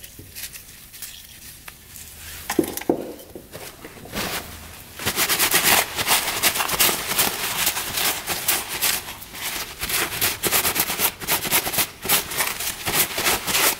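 Paper shop towel rubbed and crinkled briskly against a rusty metal roller-bearing cage, wiping off rust and penetrating oil. About five seconds in it starts as a fast, dense crackling rub. Before that there is only soft scrubbing with a few light knocks.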